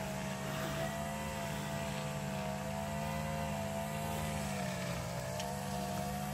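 Steady engine drone, its pitch sagging slightly about five seconds in.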